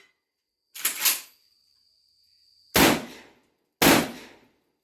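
Shotgun shots fired in a string: a weaker pair close together about a second in, then two loud shots about a second apart near the end, each with a short echoing tail.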